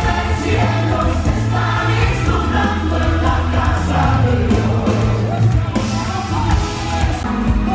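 Background music: a Christian worship song with several voices singing together over a steady low bass.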